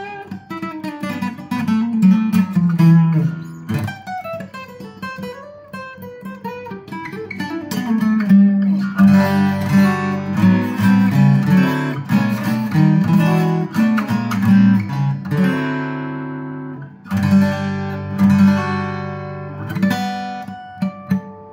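A 1970s Tokai-made Cat's Eyes CE-250 spruce-top acoustic guitar played with the fingers: a picked single-note melody with runs, then fuller ringing chords from about nine seconds in. A chord is left to ring out about sixteen seconds in, and again near the end.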